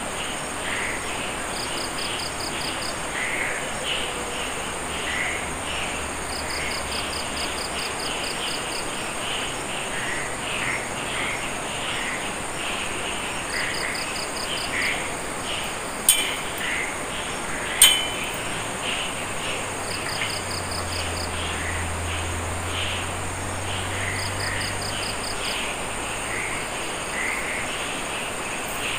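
Night chorus of insects and frogs: a steady high insect trill, short pulsed chirps repeating every few seconds, and many brief frog calls. Two sharp clicks come a little past the middle.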